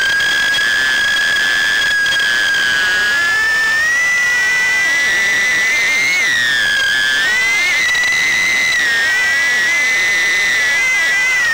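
High whine of a 1S Happymodel Mobula6 HD tiny whoop's small brushless motors, recorded by its onboard camera: several close tones that rise in pitch about four seconds in, dip briefly around seven seconds, then climb again and waver with the throttle.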